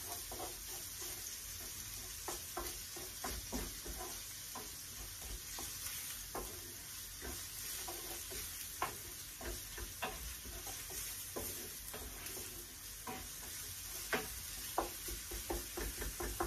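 Smoked salmon and onion sizzling in a frying pan, with a wooden spoon scraping and knocking against the pan as it is stirred, in irregular short taps.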